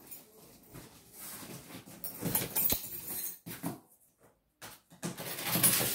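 Cardboard guitar shipping box being pried open by hand: the end flaps scrape and rub in irregular rustling bursts, loudest about two seconds in and again near the end.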